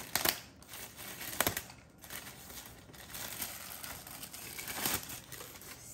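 Plastic packaging crinkling and rustling as it is handled, with a few sharper crackles: one just after the start, one about a second and a half in, and one near the end.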